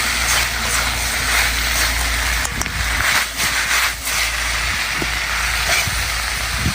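Wind rumbling on the microphone over a steady hiss, with a few short knocks about two and a half to four seconds in.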